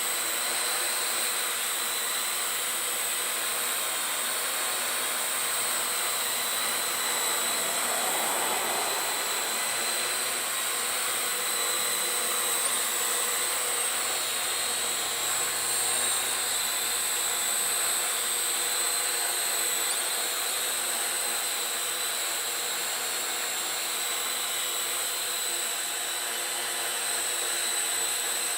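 Parrot AR.Drone 2.0 quadcopter in flight, its four electric motors and propellers giving a steady, even high whine with a rushing hiss.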